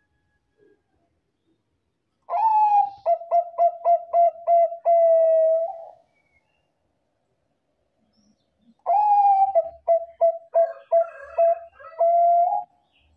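Zebra dove (perkutut, Bangkok song strain) cooing in two song phrases. Each phrase opens with a high sliding note, runs into a quick string of short stuttering coos, and ends in a longer held coo.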